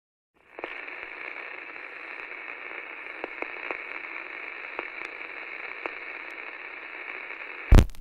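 Vinyl record surface noise: a steady, thin hiss with scattered clicks and pops. It stops near the end with one loud thump.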